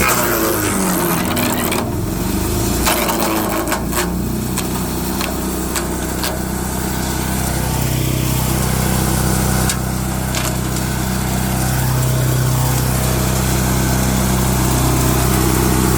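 Wood chipper's small gasoline engine running steadily, its pitch dropping at the start as it takes load, with several sharp cracks as wood is chipped about 2, 3, 4, 6 and 10 seconds in; the engine picks up again near the end.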